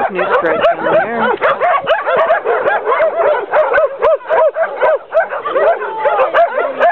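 Many shelter dogs barking at once, a dense overlapping chorus of short barks and yips with no break.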